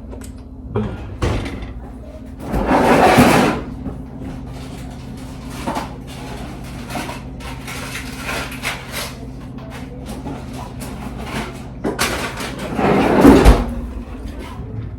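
Kitchen handling noises: scattered clicks and knocks, with two louder noisy sounds about a second long, a few seconds in and near the end, over a steady low hum.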